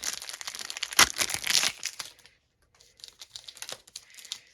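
Foil wrapper of a hockey card pack being torn open and crinkled, with one sharp crack about a second in, followed by lighter rustling and clicks of the wrapper and cards being handled.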